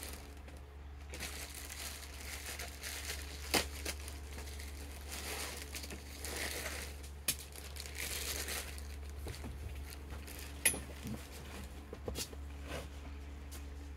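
Plastic packaging bag crinkling and rustling as a padded rifle sling is handled and unwrapped, with a few sharp clicks among the rustle over a steady low hum.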